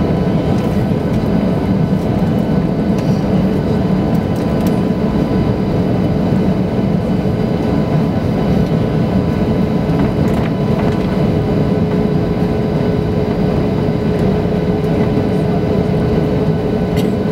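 Boeing 737-800's CFM56-7B turbofan engines running at low taxi power, heard inside the cabin as the airliner taxis: a steady rumble with several steady whining tones over it.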